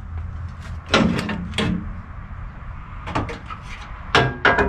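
Sharp metal clunks and clicks in three short groups, from hand tools and car body parts being handled while bolting up the front-end structure, over a low steady hum.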